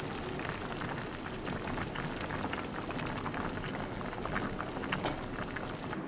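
Pot of spicy jjamppong broth bubbling at a boil, a steady crackling hiss of small pops, with a few louder clicks about four to five seconds in as a spatula stirs it.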